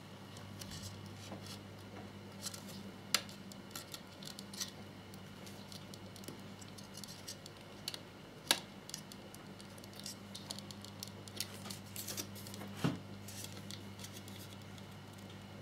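Small plastic scale-model parts being handled and pressed together, as the oil tank's locating pins are pushed into the fairing support: faint scrapes and light clicks, with a few sharper clicks about three, eight and a half, and thirteen seconds in. A steady low hum runs underneath.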